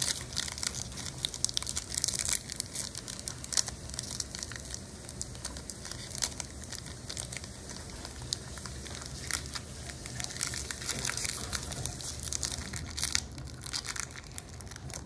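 Foil Pokémon booster pack wrapper crinkling as it is handled and opened, with many small irregular crackles and clicks throughout.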